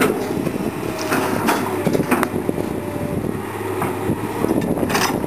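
Komatsu PC220 excavator's diesel engine running steadily under load as the bucket works through dense brush, with several sharp cracks and snaps.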